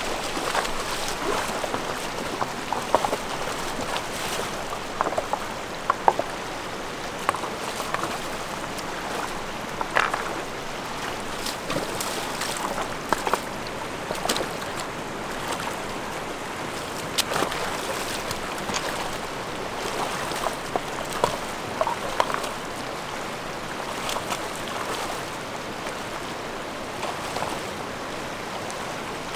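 Steady rush of a shallow river running over stones, with splashes of feet wading through the water and many short, sharp splashes scattered throughout, the loudest in the first few seconds.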